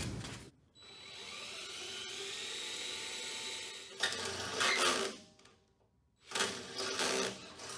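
Handheld power drill boring holes through the steel mower deck. It runs steadily for about three seconds, then comes two louder runs, about four and six and a half seconds in, with a short pause between them.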